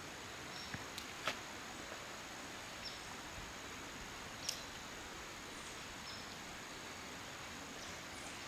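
Quiet outdoor ambience: faint short high chirps every couple of seconds over a steady background hiss, with a few light clicks, the sharpest about a second in and another at about four and a half seconds.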